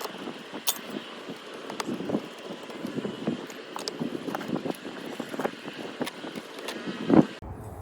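Hand-tool work on an old RV storage-compartment lock as it is taken off: scattered small metallic clicks and knocks, with one louder knock near the end.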